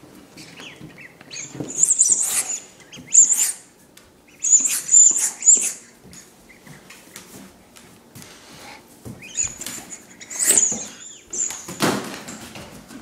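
A yellow rubber chicken squeaky dog toy squealing shrilly as a Doberman puppy bites and squeezes it, in several separate bursts of a few squeaks each.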